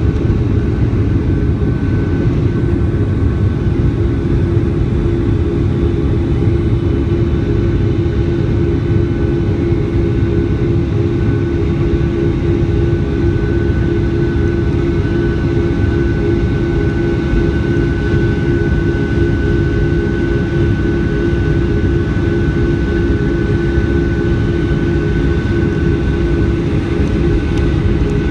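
Steady cabin roar inside a Boeing 757-200 airliner: the jet engines and airflow make a deep, unchanging rumble with a steady hum and a fainter high whine over it.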